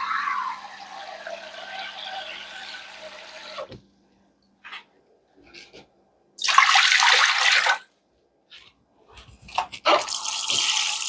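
Water being poured into a cooking pot for the soup base: one pour of about four seconds that stops abruptly, a short louder pour in the middle, and another pour starting near the end.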